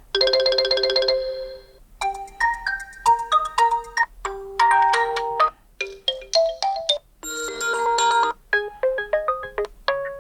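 Built-in alarm tones of an Oppo A96 smartphone playing through its speaker: several different short electronic chiming melodies, one after another, each lasting a second or two and broken off by a brief gap before the next begins.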